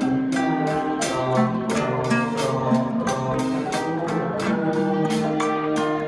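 A small Thai classical ensemble playing a melody: a quick, even stream of struck and plucked string notes, each ringing briefly.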